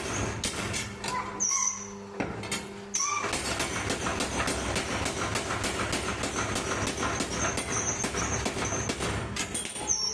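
Homemade power hammer striking in quick, even blows, several a second. The blows stop for under a second about two seconds in, leaving a steady hum, then carry on.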